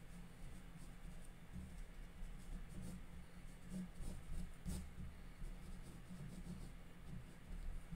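Small paintbrush stroking and dabbing wet paint on watercolour paper: faint, scratchy little strokes, one a little sharper about halfway through, over a low steady hum.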